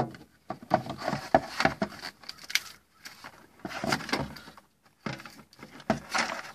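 Handling noise as a power inverter's cable and plastic case are pushed into place among the wiring of a golf cart's engine bay: irregular clicks, knocks and rustles in short clusters, with brief pauses between them.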